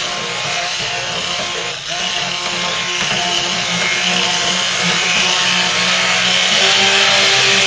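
Electric stick blender running on high with its head submerged in raw soap batter of oils and lye, a steady motor whir with a churning wash of liquid as it is moved through the mix. It gets a little louder about three seconds in.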